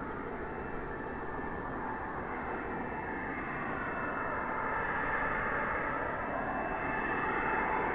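Twin model jet turbines of a Skymaster A-10 scale RC jet running as it approaches: a steady rushing sound with a thin high whine, growing louder from about halfway through.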